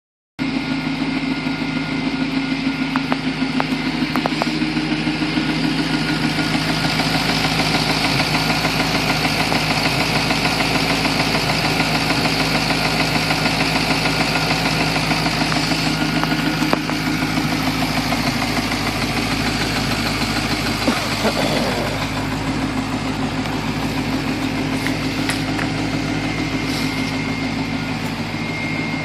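2006 Pontiac GTO's 6.0-litre LS2 V8 idling steadily, with a fast, light ticking from the valvetrain: lifter tap.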